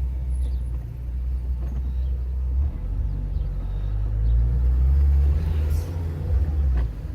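A car driving, a steady low rumble of engine and road that swells somewhat louder past the middle.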